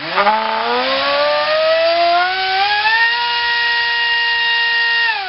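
Multistar Viking 2208 2600 kV brushless drone-racing motor spinning an APC 5x5 propeller on a 4-cell pack: a loud whine with a rush of propeller air that rises in pitch over about three seconds, holds steady, then begins to wind down at the very end.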